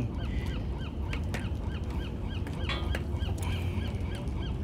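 A bird calling in a rapid series of short, high, curved chirps, about three a second, over a steady low rumble.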